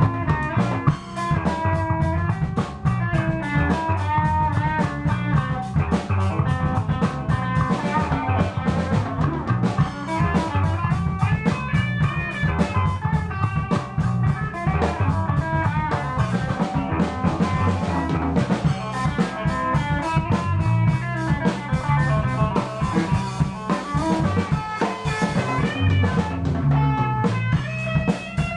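Live rock band jam: electric guitar playing lines over a drum kit and bass, continuous and steady.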